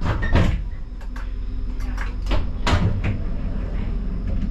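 Inside the cab of a Siemens Combino tram: a steady low hum with a string of sharp, irregular clunks and clicks, the loudest near the start and around two and a half to three seconds in.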